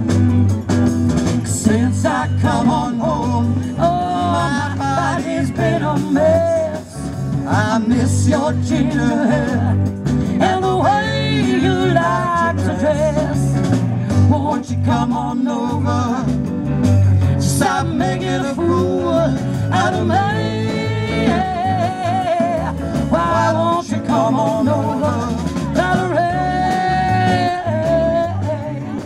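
Live blues-rock band playing: a female lead vocal over electric guitars and a drum kit, with cymbal crashes now and then.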